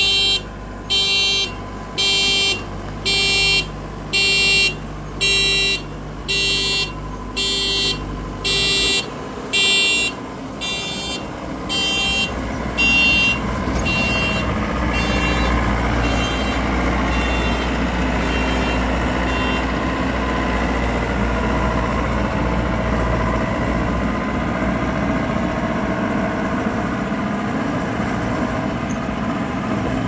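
GAM combine harvester's engine running, with its warning beeper sounding about once a second. The beeps fade out after about a dozen seconds as the engine grows louder, and the engine then runs on steadily.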